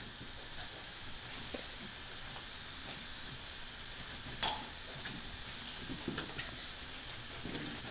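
Soft scuffles and taps of a boxer puppy and a cat play-fighting on carpet, over a steady high hiss, with one sharp knock about four and a half seconds in.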